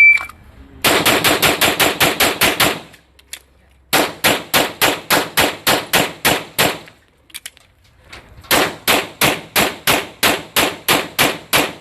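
A shot timer's beep, then a pistol fired in three fast strings of about ten shots each, parted by two short pauses for reloads. The first string is the quickest, about five shots a second; the second and third come a little slower.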